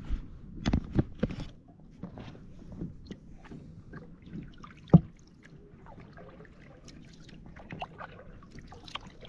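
A small fishing boat being moved across the water: water sloshing and trickling, with knocks on the boat. Three knocks come within the first second and a half, and a single sharper, louder knock comes about five seconds in.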